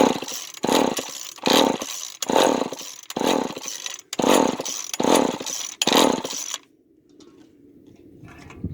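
Starter cord of an old two-stroke chainsaw, unused for 25 years, pulled hard about eight times in quick succession, one whirring stroke every second or less, then stopping. The engine does not catch.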